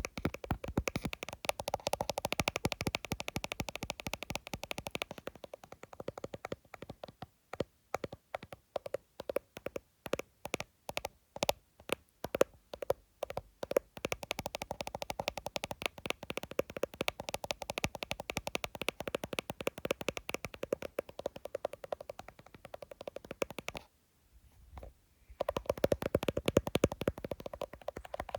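Fast tapping on an iPhone: a dense run of quick clicks, thinning to more spaced-out taps in the middle, with a break of about a second and a half near the end before the fast tapping resumes.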